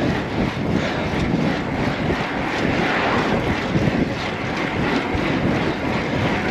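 Steady rush of wind on the camera microphone from a road bike being ridden at speed.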